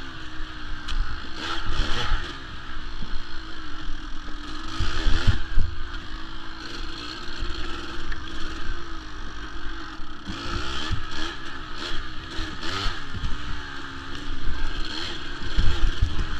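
Kawasaki KDX200 two-stroke dirt bike engine running under a rider, its pitch rising and falling with the throttle. There are louder surges about five seconds in and near the end. Knocks and rattles come from the bike over rough ground.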